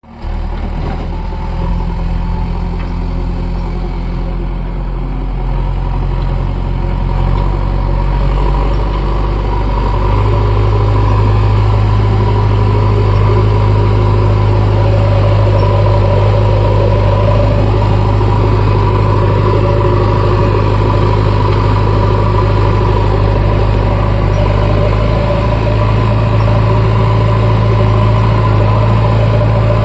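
Diesel engine of a JCB backhoe loader running steadily. Its low note steps up and gets a little louder about ten seconds in, as the revs rise.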